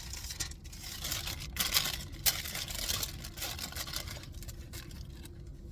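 Crinkling and rustling of a sandwich wrapper being handled and opened, a dense run of small crackles that stops shortly before the end.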